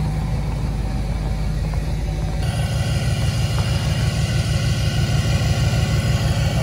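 Ford F-350 pickup's engine idling, a steady low pulsing rumble that grows louder about two and a half seconds in as the rear of the truck is reached.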